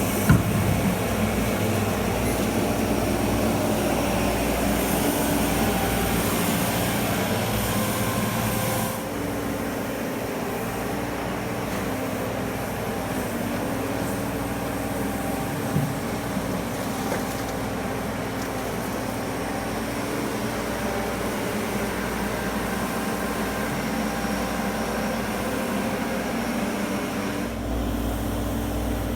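Diesel engine of a walking excavator running steadily at work, with a sharp knock near the start and another about halfway through. The sound drops suddenly about nine seconds in and gets louder again near the end.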